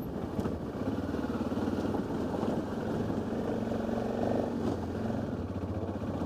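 Motorcycle engine running steadily while riding over a dirt track, heard from on the bike.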